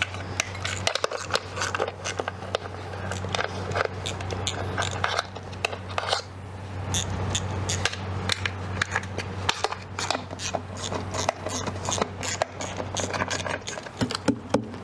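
Hand tools clinking and scraping on the V8's valve covers as they are worked loose: many sharp metallic clicks and knocks at irregular intervals, over a steady low hum.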